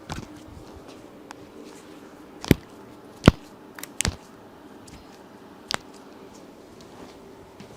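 Spinal joints cracking under a chiropractic thoracic adjustment: a few short, sharp pops, the loudest about three seconds in, followed by a quick double pop and a weaker one a couple of seconds later.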